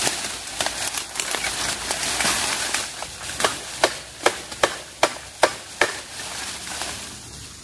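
Crackling, rustling handling of bamboo, then a quick run of about seven sharp strikes on bamboo, a little more than two a second, before it quietens.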